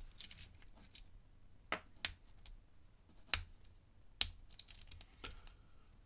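Faint, irregular clicks and light scraping of a lock pick and tension wrench working the pins inside an aluminium padlock's six-pin brass cylinder, which is fitted with security pins.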